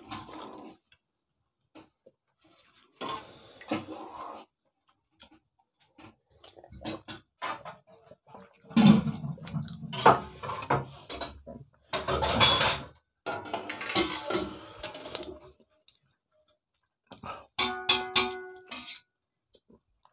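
Eating with bare hands from steel plates: fingers scraping and mixing rice and fish curry against the metal, with chewing and mouth sounds. In the middle come louder, noisier stretches as water is drunk from a glass, and near the end a brief ringing note sounds.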